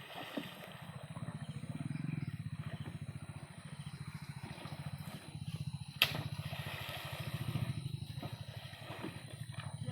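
A small engine running steadily with a fast, even chugging, and a sharp click about six seconds in.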